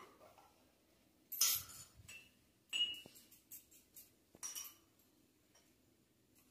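A metal spoon clinking and scraping against a glass jar of pizza sauce as sauce is scooped out. There are three louder clinks about a second and a half apart, the middle one with a short ring, and lighter taps between them.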